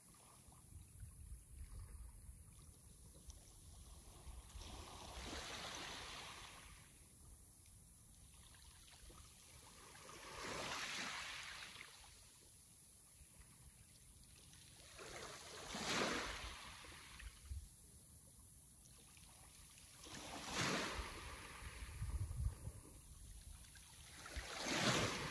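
Sea waves washing in and breaking about every five seconds, each a rising and falling hiss, with a low rumble beneath.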